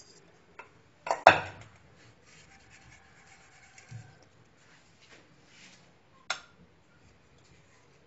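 Glass mixing bowl and metal whisk clattering in a loud cluster of knocks about a second in, then faint scraping, and one sharp click a little after six seconds.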